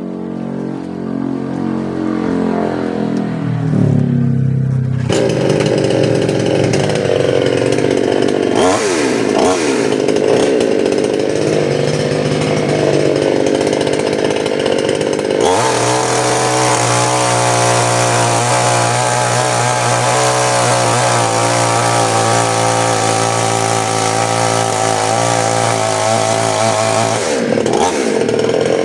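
Two-stroke gasoline chainsaw, a 'New 799 Stihl', being tested: its engine revs up over the first few seconds to full throttle and runs at high revs, with a couple of brief dips. About halfway through the tone turns steadier and heavier, then drops briefly near the end.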